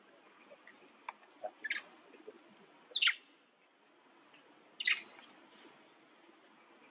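Two short, sharp high-pitched animal calls about two seconds apart, with a few fainter chirps between, over a steady high insect drone.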